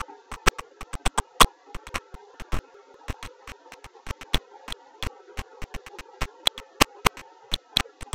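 Irregular sharp clicks and crackles, several a second, over a steady hum: static on a nestbox camera's audio feed.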